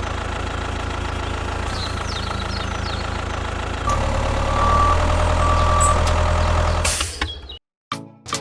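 A motor running steadily with a low, even hum. It grows louder about four seconds in and cuts off shortly before the end, with short high chirps over it in the first half.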